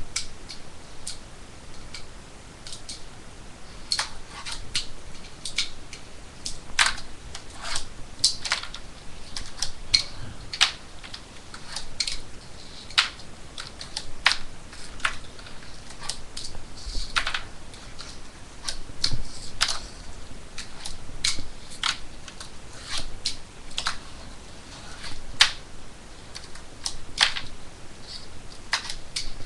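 Fingerboard clacking on a desk and a small ledge: irregular sharp clicks as the board is popped, landed and slid.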